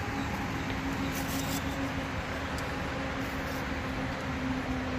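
Steady hum of an idling vehicle engine, a constant low drone over even background noise.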